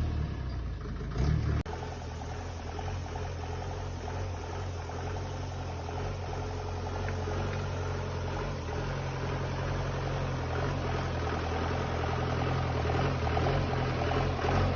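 Engine of a 4×4 vehicle running steadily while driving, a low drone that shifts suddenly about a second and a half in and then holds even.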